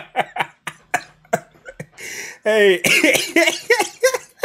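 A man laughing hard in quick breathy bursts, about four a second, that trail off. About two seconds in comes a loud, drawn-out burst of voice with a falling pitch.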